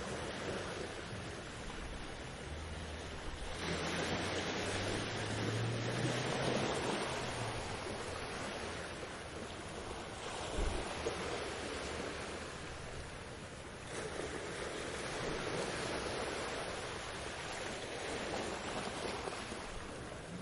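Ocean waves washing onto a beach, the surf swelling and easing in long surges.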